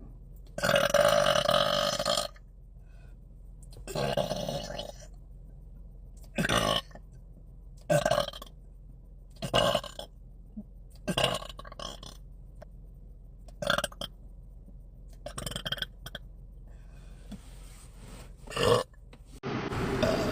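A woman burping repeatedly, bringing up a lot of gas: about nine loud burps a second or two apart, the first two long and drawn out, the rest short.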